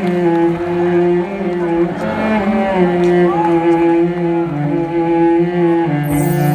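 Live concert music heard from the audience: an instrumental passage of long held notes, string-like, moving slowly from chord to chord, with brighter high sound coming in near the end.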